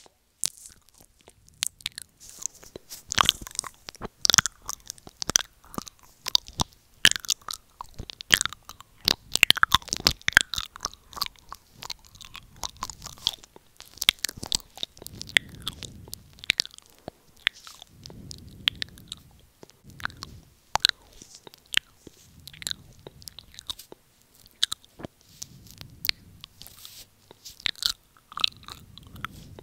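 Wet mouth sounds made right against a wired earphone's in-line microphone: irregular lip smacks, tongue clicks and sucking sounds in quick, uneven runs with soft breaths between them.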